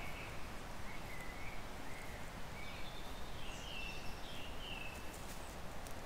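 Steady hiss of a trail camera's recording with a songbird singing in the background: a run of short whistled phrases that climb a little higher around the middle, with one high falling note about three and a half seconds in.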